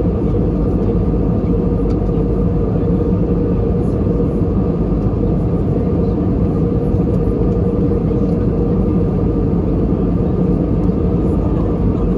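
Steady cabin noise of an Airbus A321 in flight, heard inside the cabin: the drone of its jet engines and rushing airflow, with a steady hum running through it.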